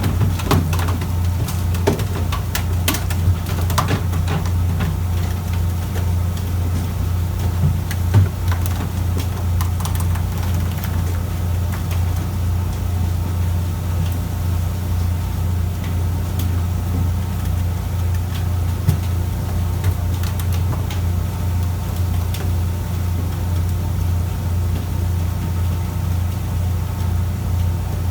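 Fishing boat's engine running steadily with a low drone and an even fine pulse. Scattered sharp clicks and knocks sound in the first few seconds and once about eight seconds in.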